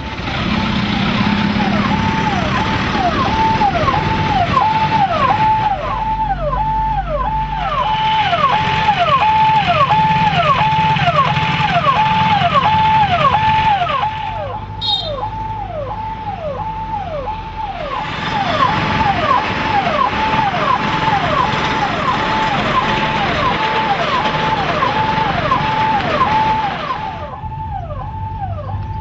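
An electronic alarm tone repeating steadily about three times every two seconds, each tone held and then dipping in pitch, over a noisy vehicle or traffic hiss that drops away abruptly twice and comes back once.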